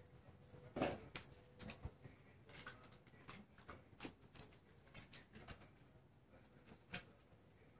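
Faint, irregular clicks and taps of puppies' paws and claws on a brick-tile floor as they move about.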